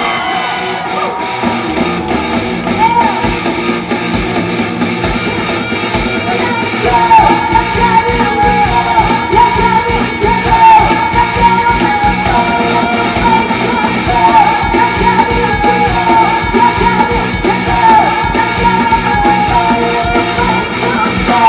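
Live rock-style band music played loud through a concert sound system, with a high, wavering lead melody over steady backing.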